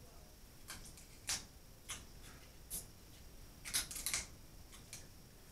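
Seafood-boil eating sounds: a scattered string of short, sharp clicks and snaps from shells and mouths, with a quick cluster of them a little before four seconds in.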